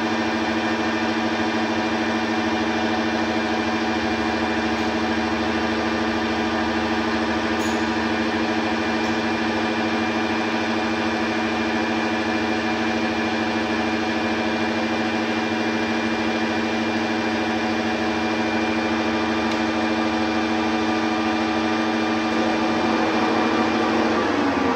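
Metal lathe running steadily, with a constant whine from its spindle and gearing. The tone changes about a second before the end.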